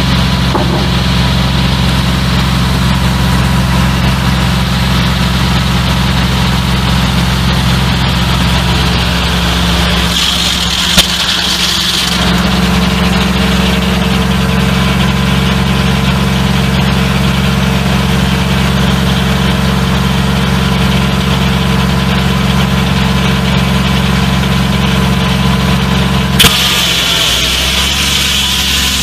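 Old farm tractor engine running steadily, belted to a circular sawmill. Its note changes around ten seconds in and again near the end, each time with a sharp click and a brief hiss.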